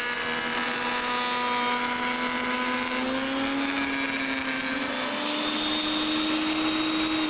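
Router in a router table running and cutting an ogee profile into a strip of white oak: a steady motor whine that rises slightly in pitch after about three seconds.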